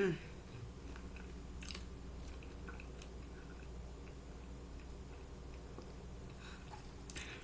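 Someone chewing crispy fried chicken, with a few faint crunches, the loudest about a second and a half in and just before the end, over a steady low hum.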